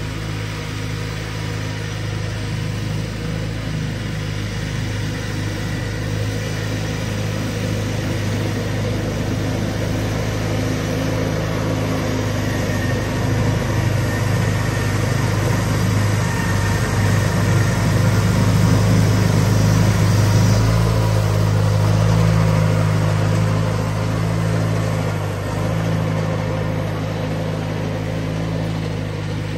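1992 John Deere 318 garden tractor's two-cylinder Onan engine running steadily while it drives a front snowblower through heavy wet snow. It grows louder toward the middle as the tractor comes closer, then eases off.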